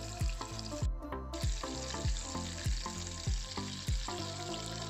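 Breaded banana pieces deep-frying in a pot of hot oil, a steady bubbling sizzle, under background music with a steady thumping beat.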